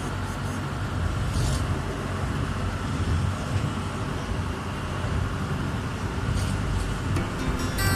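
Ferry's engine running with a steady low rumble, heard on board.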